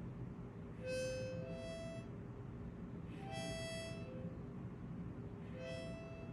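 A child blowing a few faint notes on a small harmonica: three short pairs of held notes, each stepping up from a lower note to a higher one, with pauses between.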